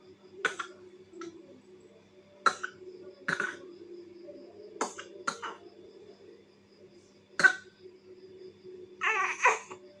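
A baby coughing: short single coughs every second or two, then a longer double cough near the end.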